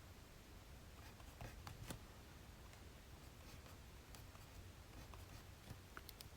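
Faint scratching of writing by hand on paper, in short strokes, over a steady low room hum.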